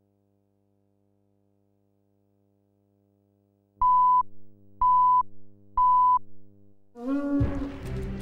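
Faint hum, then three short, loud, high beeps a second apart from a film countdown leader. About seven seconds in, music starts with a quick rising sweep.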